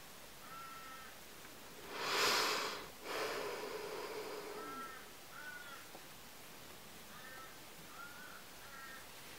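A deep human sigh: a loud breath about two seconds in, then a longer, softer exhale. Faint short chirps come every second or so.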